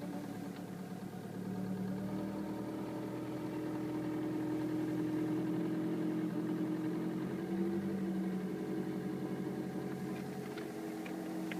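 Renault Megane III 1.5 dCi diesel engine running steadily, carrying the extraneous noise the owner is trying to pin down. A few faint ticks come near the end.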